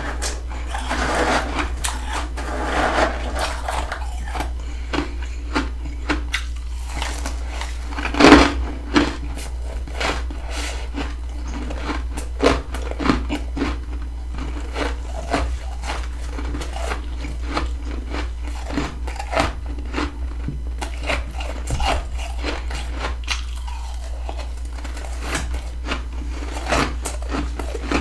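Close-up biting and chewing of freezer frost: a long run of crisp crunches, the loudest about eight seconds in, over a steady low hum.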